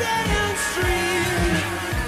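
Background pop music with a steady drum beat and a singing voice.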